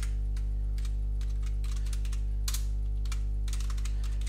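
Computer keyboard keys clicking at an irregular pace over a loud, steady electrical mains hum.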